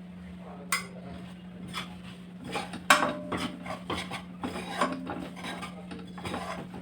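A metal ladle scraping and stirring gram flour roasting in ghee in a pan, in irregular rasping strokes with a sharp clank of metal on the pan about three seconds in. A steady low hum runs underneath.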